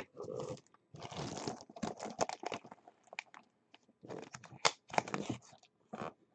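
Plastic wrapping crinkling and a cardboard box rustling as a boxed, framed jersey is handled, in irregular bursts with a sharp knock about three-quarters of the way through.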